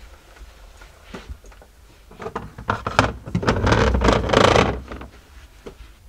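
Knocks and clatter of things being shifted on a refrigerator shelf as a large glass jar is set in place, with a scraping rustle in the middle seconds.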